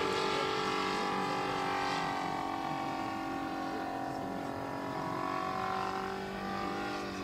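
Multi-cylinder model aircraft engine of a large radio-controlled biplane, running steadily in flight overhead on its approach to land.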